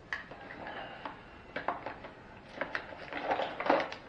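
Small bottles clicking and knocking against each other and a plastic caddy as they are rummaged through by hand: a few separate clicks, then a busier clatter near the end.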